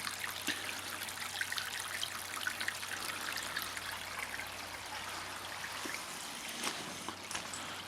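Garden pond waterfall and stream, water trickling and splashing steadily.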